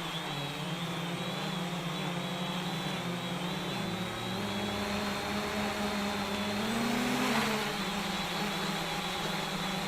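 JJRC X1 quadcopter's brushless motors and propellers whining in flight. Several tones shift in pitch together as the throttle changes, with a short rise about seven seconds in before dropping back.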